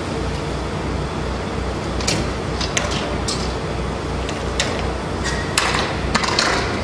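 Metal catches and fittings on a semi-trailer's tarp body being worked by hand: a scattering of sharp clicks and short metallic clanks starting about two seconds in and coming thickest near the end, over a steady low throbbing drone.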